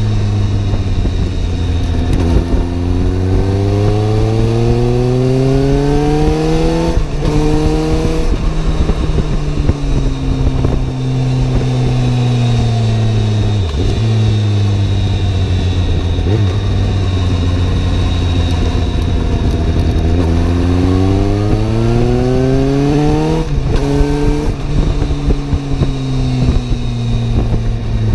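Suzuki GSR750's inline-four engine on the move, heard from the back of the bike: the revs climb twice, each climb broken off briefly about seven seconds in and again near twenty-three seconds, then fall away slowly as the bike slows.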